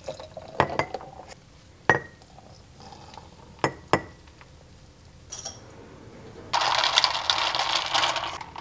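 Glass jars clinking a few times as drinks are poured into a glass mason jar of ice, then about two seconds of loud ice rattling against the glass as a straw stirs the iced coffee, near the end.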